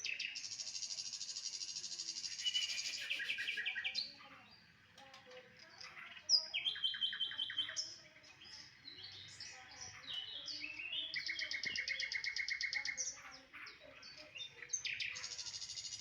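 White-rumped shama (murai batu) in full song: fast rattling trills and sharp, varied notes in phrase after phrase, with short lulls between bouts.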